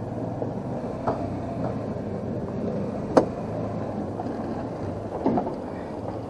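A vehicle running steadily, with a sharp click about three seconds in and a few lighter knocks or rattles.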